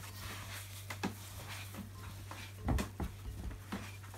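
Hands kneading and pressing a sticky brown-bread dough in a stoneware mixing bowl: irregular soft knocks and scrapes of dough and hands against the bowl, the loudest a little under three seconds in. A low steady hum runs underneath.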